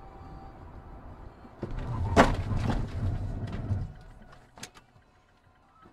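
Steady road noise from a moving car, then about a second and a half in a sudden loud bang and rumble with a sharp crack, dying away over about two seconds with a few more sharp knocks.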